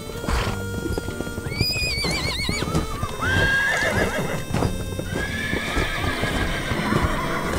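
Horse sound effects over background music: a horse whinnies with a quavering call about a second and a half in, then calls again at more length, while hooves clip-clop throughout.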